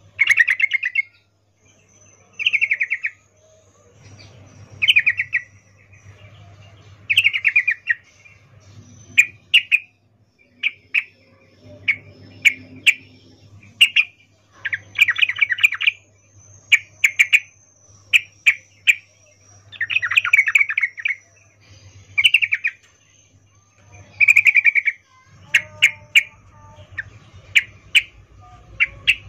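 Female yellow-vented bulbul (trucukan) giving her mating call ('ngecuplik'): short bursts of rapid chattering chirps every second or two, with single sharp notes in between. This is the call used as a lure to set male trucukan singing.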